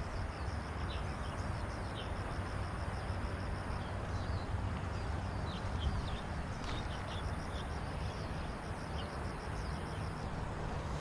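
Outdoor riverside ambience: an insect's high, evenly pulsing trill and scattered short bird chirps over a steady low rumble.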